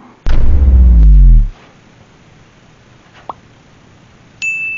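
Edited intro sound effects: a loud, deep sound falling in pitch for about a second, a short rising pop near the middle, then a single high bell ding that rings on and fades, as a subscribe-bell notification chime.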